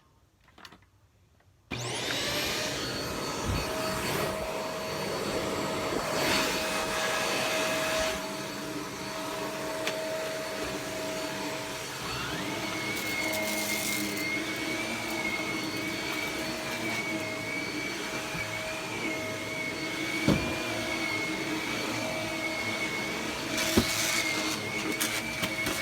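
Bagless vacuum cleaner switched on about two seconds in, then running steadily with a motor hum. A thin high whistle joins about halfway through, and there are a couple of brief knocks near the end.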